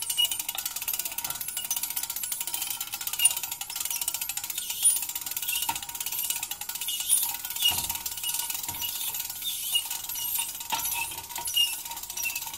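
Squeaking metal: a fast, continuous stream of small metallic clicks and rattles with short high squeaks, and a few louder knocks along the way.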